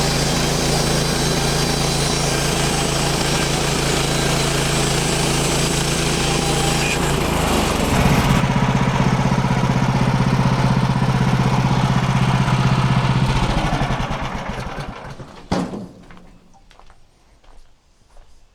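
Portable bandsaw sawmill's gas engine running at full speed, its sound shifting about eight seconds in, then shut off and winding down to a stop near the end, followed by a single knock.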